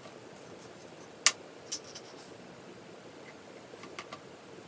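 A few sharp clicks and taps of small glass bottles and a glass dropper being handled on a plastic paint palette. The loudest click comes about a second in, and lighter taps follow shortly after and again near the end.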